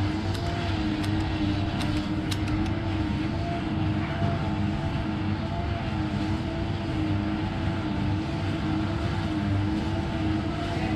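Steady mechanical hum with a slowly wavering pitch over a low rumble. A few light clicks about one to two and a half seconds in, from scissors snipping.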